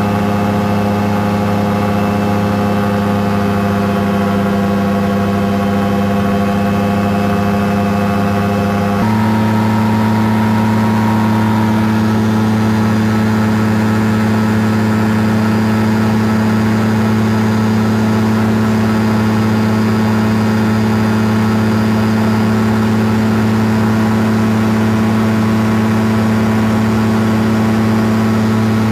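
Caprice 21 ultralight's engine and propeller droning steadily in cruise flight, heard from the cockpit. About nine seconds in, the pitch and loudness step up slightly, then hold steady.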